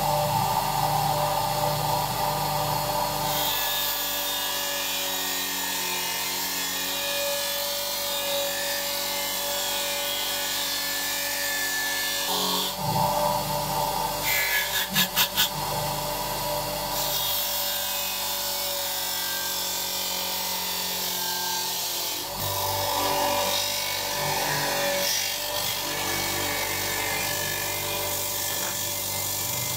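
Bench grinder running with a wire brush wheel scrubbing the metal pan of an old kitchen scale to strip rust and corrosion: a steady motor hum under a dense rasping hiss. The scrubbing eases off for a few seconds past the middle, with a short run of quick pulses, then resumes.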